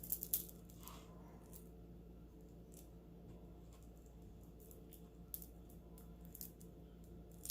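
Faint scattered clicks and taps of beaded stretch bracelets and necklaces being handled, the sharpest just after the start and about five and a half seconds in, over a low steady hum.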